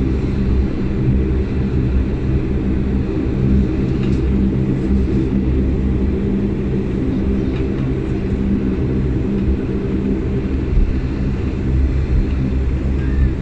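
A Bombardier Dash 8 Q400's Pratt & Whitney PW150A turboprops running while taxiing, heard from inside the cabin as a steady low drone made of several held tones.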